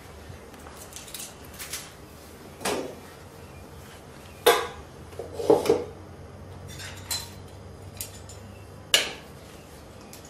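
Dishes and serving utensils clinking and knocking, about seven separate sharp clatters, the loudest a little before the middle and near the end, as food is served out.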